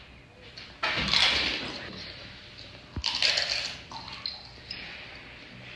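Wet crunching and squelching of golgappas (pani puri shells) being dipped in liquid and bitten, in two main bursts about a second in and about three seconds in.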